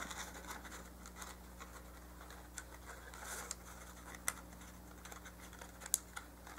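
Faint, scattered light clicks and scratchy rustles of a small cardstock paper box being handled on a work surface, over a low steady hum.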